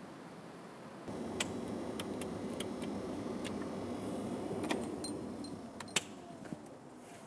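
Whirring from the cab of a Cat 140M motor grader, coming on about a second in and dying away about four seconds later, with scattered sharp clicks of switches and controls being worked.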